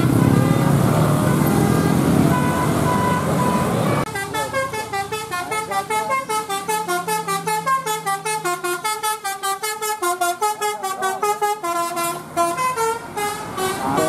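Bus engine and traffic noise for about four seconds. Then an Indonesian tour bus's musical 'telolet basuri' horn plays a fast tune of short, quick notes, several a second, and the notes slow down near the end.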